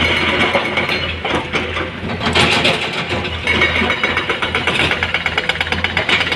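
Heavy diesel engines of hydraulic excavators and a loaded dump truck running steadily with a fast, regular clatter. About two seconds in, a gritty rush of soil and rock spills from an excavator bucket into the steel truck bed.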